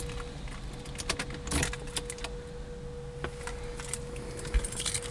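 Keys jangling, a run of small irregular metallic clinks and clicks over a faint steady whine.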